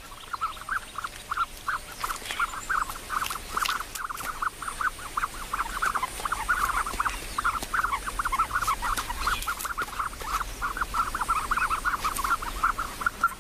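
Newly hatched ostrich chicks peeping, a rapid run of short, squeaky calls, several a second, without a break.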